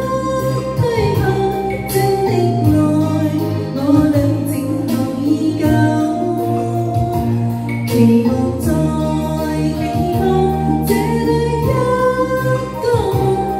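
A Chinese pop duet karaoke song playing: sung vocals over a band backing with a steady bass line and beat.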